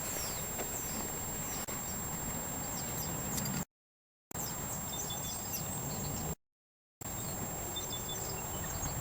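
Outdoor ambience with small birds chirping in short, high, falling notes over a steady background hiss. It cuts out to dead silence twice for about half a second.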